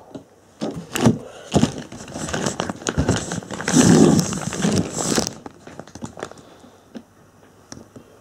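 Handling noise from a handheld camera being moved: scattered clicks and knocks, with a longer, louder rustle from about three to five seconds in.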